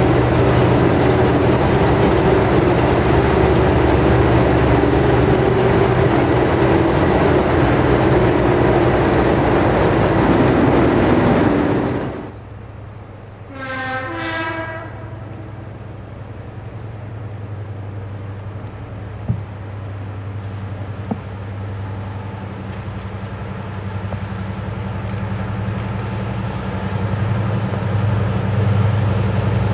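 A Class 37 diesel-electric locomotive's English Electric V12 engine running loudly as it moves in close. After a sudden cut, a Class 55 Deltic sounds its horn briefly in the distance. Its twin Napier Deltic engines then drone as it approaches, growing steadily louder.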